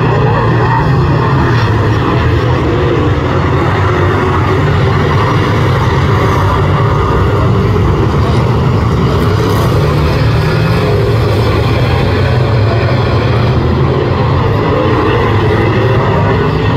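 A pack of speedway saloon cars lapping a dirt oval, their engines running loud and steady with no breaks.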